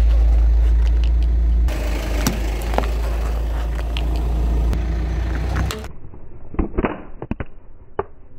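Car creeping slowly on asphalt: a steady low rumble from the engine and rolling tyre, with small crackles of grit under the tread. About six seconds in the rumble drops away, leaving a quick cluster of sharp clicks and snaps and one more near the end.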